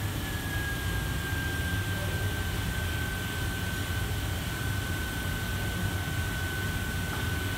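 Commercial kitchen ventilation running: a steady low hum and rush of air, with a thin high whine that drifts slightly lower in pitch.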